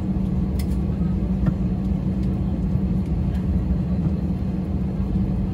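Cabin noise of a jet airliner taxiing after landing, its engines at idle: a steady low rumble and hum with a few faint clicks.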